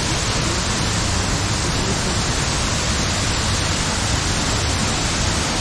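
Waterfall's steady roar of falling water, a loud even rush with no break or change.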